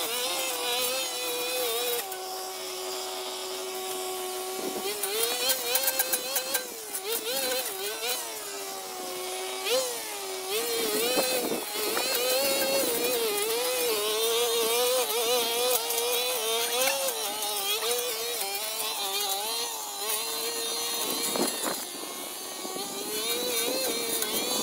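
Two-stroke brush cutter engine running, its pitch rising and falling as throttle and cutting load change. From about two seconds in it holds lower and steady for a few seconds, then climbs and wavers again.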